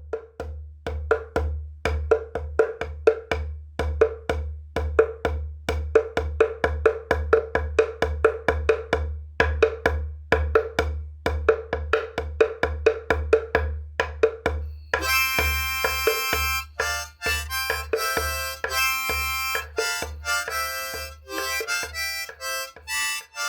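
Music: quick, steady strikes on a wooden percussion instrument over a low pulsing drone, then about fifteen seconds in, sustained held chords from a reedy instrument take over.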